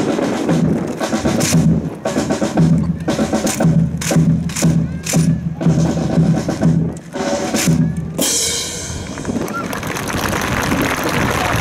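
Military band drum cadence for a rifle drill: bass drum and sharp strokes in a steady beat of about two a second, stopping about eight seconds in, after which a steady crowd murmur remains.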